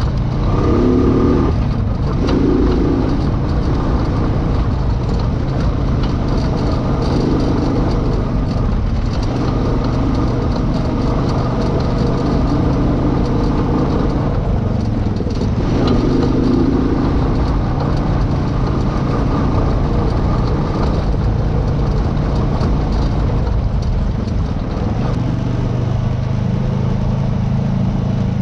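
Off-road vehicle engine running steadily under changing throttle, its note rising a little near the end, over a steady low rumble.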